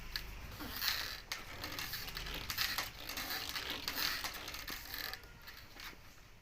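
Irregular mechanical clicking, creaking and scraping, like a small mechanism or hand tool working against material.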